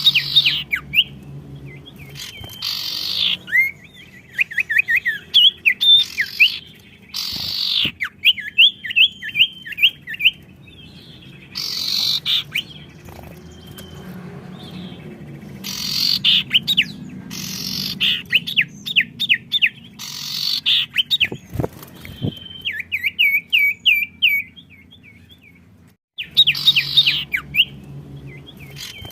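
Caged songbirds singing back and forth in lively song. Each phrase is a loud rasping burst followed by a quick run of sweeping chirps, and the phrases repeat every few seconds.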